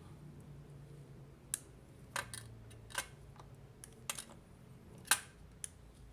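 Scattered sharp clicks and snaps, about six, with the loudest about five seconds in, from a tool working at the sealed plastic case of a Nintendo Switch AC adapter.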